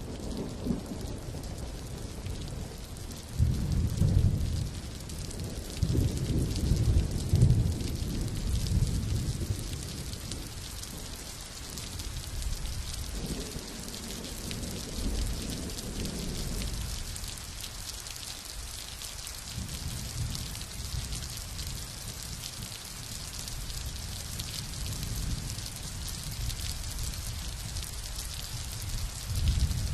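Heavy rain falling steadily, a continuous hiss, with low rumbles swelling up several times in the first half.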